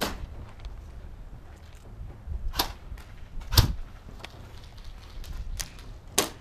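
Airsoft gunfire: four scattered sharp cracks, the loudest about three and a half seconds in with a low thump, over a steady low rumble.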